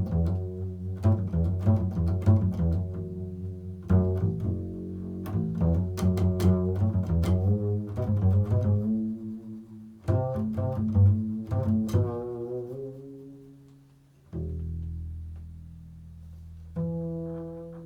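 Improvised solo music on a low-pitched plucked string instrument: clusters of plucked notes and chords with deep bass notes, each left to ring and die away, thinning near the end to two single low notes that sustain.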